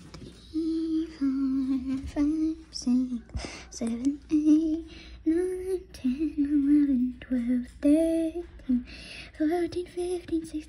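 A voice humming a slow tune in a run of short held notes.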